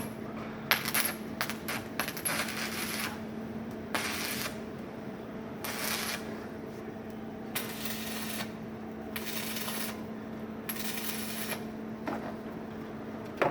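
A few sharp metallic clicks near the start, then a series of separate rasping strokes about a second long each, like hand scraping or sanding, over a steady low hum.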